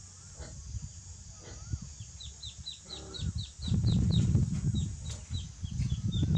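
Duckling peeping: a quick run of short, falling high peeps, about four a second, starting about two seconds in. A loud low rumble on the microphone comes in about halfway through.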